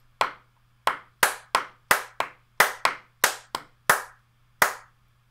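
Hand claps, about a dozen, kept to a steady tempo as two people try to clap together over a remote audio link. Several land in close pairs a fraction of a second apart, so the two are not quite together.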